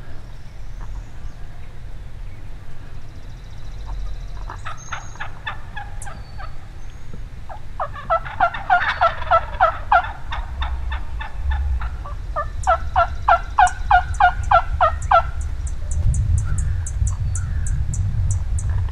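Wild turkeys yelping: three runs of rapid yelps, about seven notes a second, the middle run the loudest.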